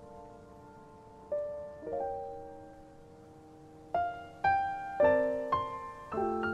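Background piano music: sparse single notes, growing busier with more frequent notes about four seconds in.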